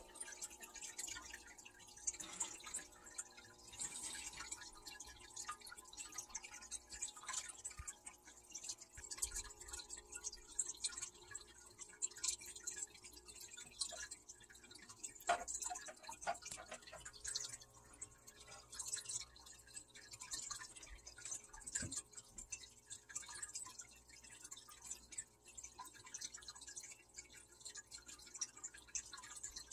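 Faint, irregular water dripping and trickling in an aquarium, with a low steady hum underneath.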